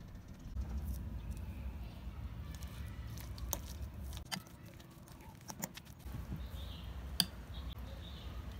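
Metal fork mashing and stirring soft mashed sweet potato in a ceramic bowl, with wet squishing and a few sharp clicks of the fork against the bowl. The loudest click comes near the end.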